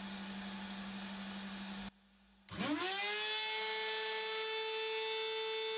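A steady low hum, cut off by a short silence about two seconds in; then the CNC machine's compact router spindle starts up, a whine rising quickly in pitch and settling into a steady high whine.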